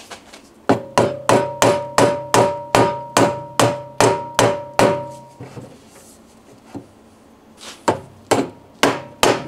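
A mallet striking the end of an octagonal western red cedar blank to seat it on a wood lathe's drive centre. A quick run of about a dozen even blows, roughly three a second, with a ringing tone beneath them. After a pause of a couple of seconds a second run of blows begins near the end.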